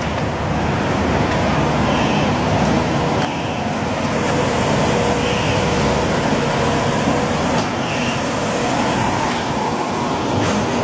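Heavy municipal cleanup vehicles running steadily, a continuous engine and machinery noise with a faint hum.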